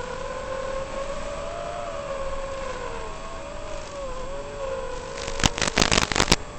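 FPV drone's motors and propellers whining, the pitch wavering up and down with the throttle over a steady rush of air. About a second before the end comes a quick cluster of sharp cracks, louder than the motors.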